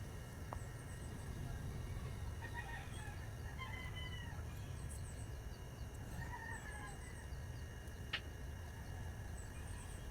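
Chickens clucking and calling faintly over a steady low rumble, with small birds chirping high up and a single sharp click about eight seconds in.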